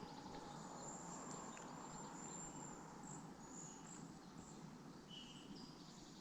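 Quiet riverside ambience: a faint haze with thin, high insect trilling that comes and goes, and a brief chirp about five seconds in.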